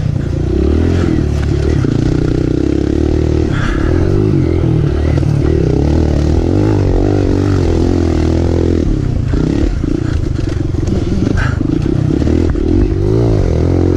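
Kawasaki KLX 140L's four-stroke single-cylinder engine running hard, its revs rising and falling again and again with the throttle, with rattling and scraping as the dirt bike goes over rough trail.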